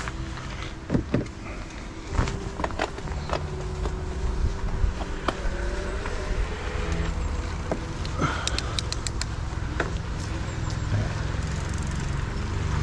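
Car engines and tyres running at low speed, as in a busy car park, with scattered clicks and knocks and a quick run of ticks about eight and a half seconds in.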